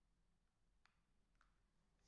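Near silence with two faint clicks about half a second apart, typical of button presses on the keypad of an Alcatel OT-808 mobile phone.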